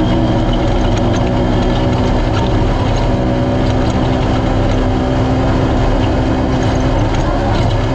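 Naturally aspirated Polaris RZR race UTV engine running at a steady pitch, heard onboard. Scattered rattles and clicks sound over the engine.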